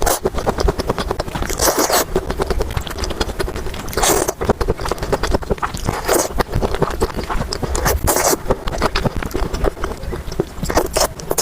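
Close-miked eating sounds: steady crackly, wet chewing and biting of food, with three short, louder noisy bursts about a second and a half, four and eight seconds in.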